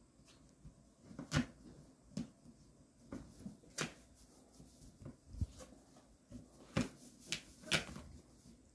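Scattered light taps and knocks, a handful of them sharper and louder, from small puppies scrambling about on a play mat and in and out of fabric dog beds.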